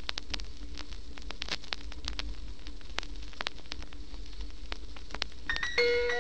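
Vinyl LP surface noise in the lead-in groove between tracks: a steady hiss scattered with crackles and pops over a low rumble and a faint hum. About five and a half seconds in, the first ringing mallet-percussion notes of the next track come in.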